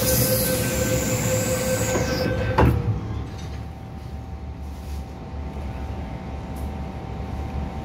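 MTR M-Train electric multiple unit braking to a stop at a platform: a steady electric whine from the traction equipment and a high squeal that falls in pitch, ending in a single knock as the train halts about two and a half seconds in. After that comes the quieter steady hum of the train standing still.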